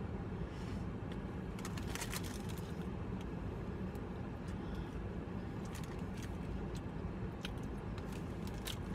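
A person chewing a mouthful of cheeseburger, with scattered small clicks and crinkles, over a steady low hum inside a car.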